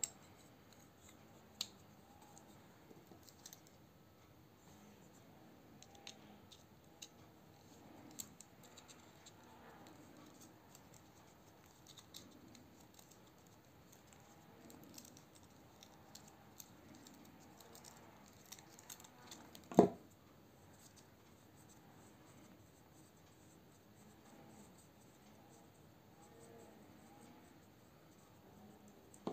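Faint clicks, taps and scratches of a Skif Shark II folding knife being handled and taken apart with a small tool, with one sharper knock about two-thirds of the way through.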